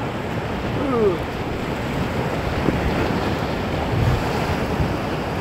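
Steady rushing noise of white-water river rapids.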